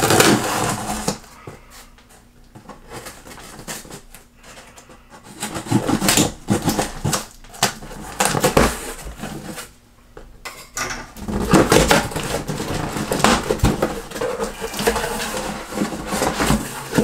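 A knife slicing through packing tape on a cardboard shipping box, then the cardboard flaps being pulled open and a shoe box handled inside: scratchy scraping and rustling in bursts with short pauses, busiest in the second half.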